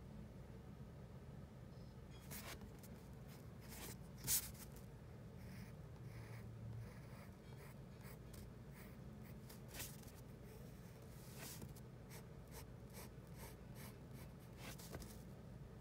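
Graphite pencil drawing on paper: faint, short, irregular scratching strokes, with one louder stroke about four seconds in.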